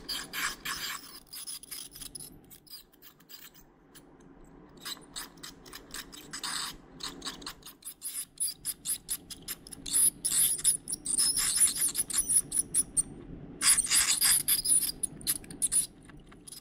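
Dental scaler scraping tartar off a dog's teeth in bursts of quick, gritty strokes, louder and denser in the second half, stopping just before the end.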